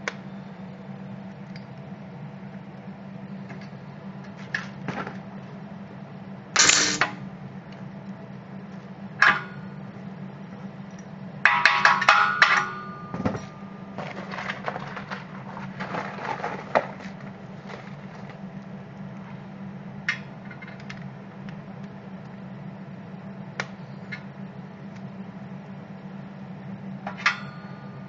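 Steady low electrical hum from a drawn arc stud welder's power unit, with scattered sharp metallic clicks and knocks as studs, ceramic ferrules and the stud gun are handled on a steel beam; the loudest knocks come about seven and twelve seconds in.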